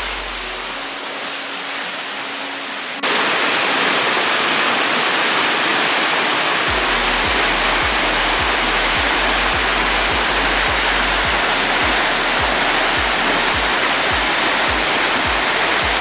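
Waterfall's steady rush of falling water, jumping louder about three seconds in. From about seven seconds a bass beat of background music, about two beats a second, runs under it.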